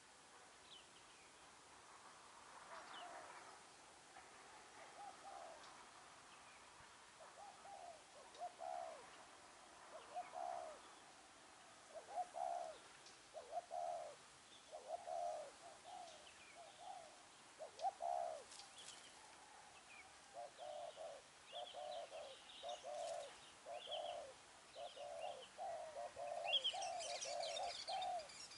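Spotted doves cooing: repeated low coos that come more often and louder from about eight seconds in. Short, higher bird chirps join in near the end.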